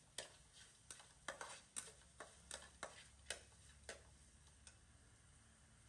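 Metal spatula tapping against a steel wok while stir-frying rice: about a dozen light, irregular clicks that die away a little before the end.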